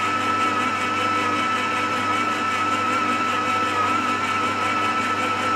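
Stand mixer motor running steadily at medium speed, mixing a bread dough batter of milk, sugar, yeast and egg, with a steady high whine.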